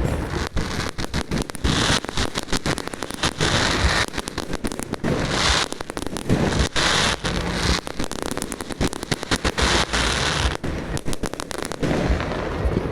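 Fireworks going off in quick succession: a dense run of bangs and crackles, with several hissing, crackling bursts, thinning out in the last couple of seconds.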